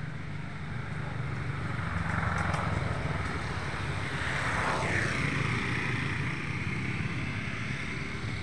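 A motor vehicle passing by on the road. Its noise builds over a few seconds and peaks about five seconds in, with a falling pitch as it goes past, over a steady low hum.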